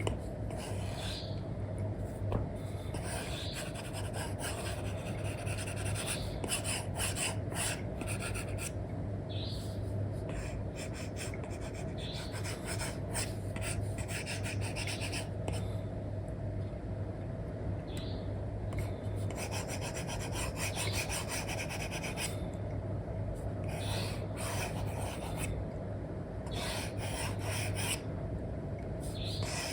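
Apple Pencil 2 with an Elecom replacement nib scratching and rubbing across a paper-like screen protector on an iPad, in many short irregular strokes, over a steady low hum.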